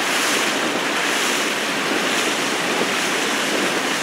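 Steady rush of water and splashing around an outrigger canoe being paddled at speed, with wind on the microphone.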